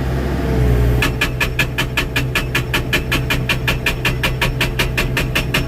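Mecalac excavator's hydraulic breaker hammer starting up about a second in and pounding in a fast, even rhythm of about six blows a second, over the steady hum of the machine's engine.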